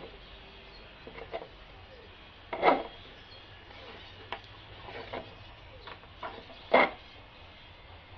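A few scattered knocks and clicks as a quarter-inch threaded rod is handled and fitted through a wooden box, with two louder knocks: one a third of the way in and one near the end.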